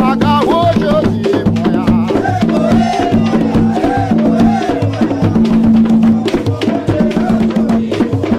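Tambor de crioula: a set of hand drums beating a fast, dense Afro-Brazilian rhythm with sharp clicks on top, while voices sing over the drumming.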